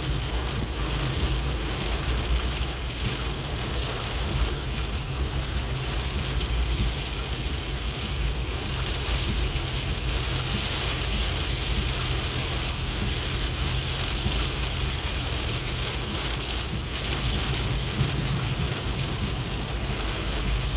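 Steady heavy rain falling, an even hiss of downpour with a constant low rumble underneath.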